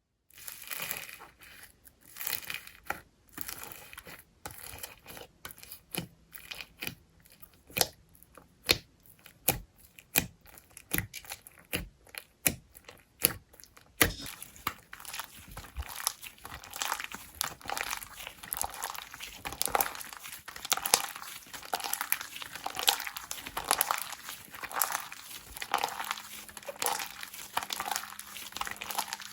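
Slime being squished and pressed by hand: a run of separate sharp, sticky pops, about one or two a second, turning about halfway through into a denser, steady crackling.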